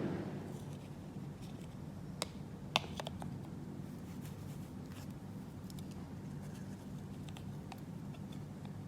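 Light clicks and taps of small plastic toy pieces being handled, with two sharper clicks about two and three seconds in, over a steady low hum.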